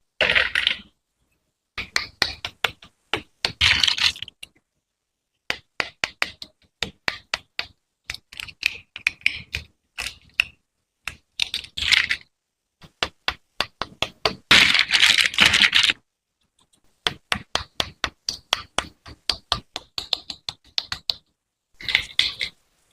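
Hard plastic toy pieces clicking, tapping and rattling in quick runs of sharp clicks, with short pauses of silence between the runs and a dense rattle about two-thirds of the way through.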